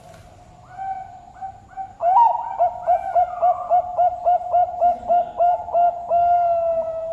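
Zebra dove (Bangkok perkutut) singing: a few soft coos, then from about two seconds in a fast run of rolling coo notes, about four a second, ending in one long held note.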